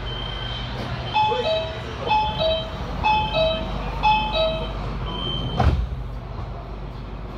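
Metro door-closing warning: a descending two-note chime repeats four times, about once a second, between high steady beeps, then a single loud thud as the doors shut about five and a half seconds in. A steady low hum runs underneath.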